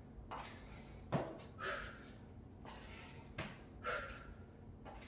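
A woman's sharp exhalations, one about every two seconds, with soft thumps and scuffs of sneakers stepping on a floor mat during cross lunges.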